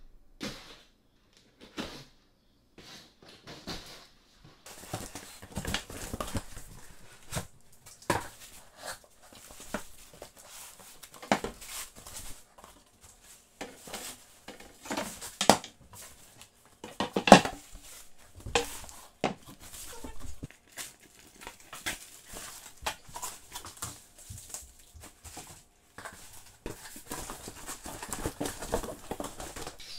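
Unpacking a flat-packed wooden furniture kit from its cardboard box: plastic wrapping crinkling, cardboard rustling and wooden boards knocking against each other in irregular handling noises, with one loud knock a little past the middle.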